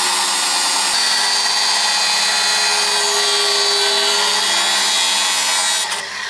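Corded angle grinder cutting through sheet metal with its disc, a steady loud whine and grind with sparks flying. The sound shifts slightly about a second in and briefly eases near the end.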